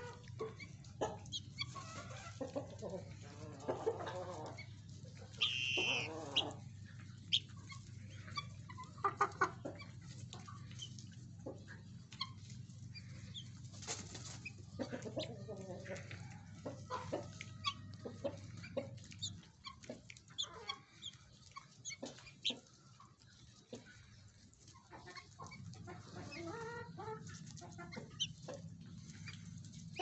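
Guinea fowl clucking and giving short calls while they feed, with scattered short clicks throughout. A steady low hum runs underneath and drops out for several seconds past the middle.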